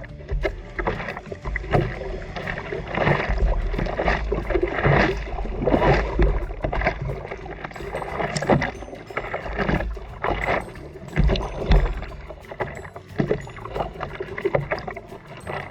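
Sea water splashing and rushing around a surfer in irregular surges, with a low rumble of wind or water on the microphone.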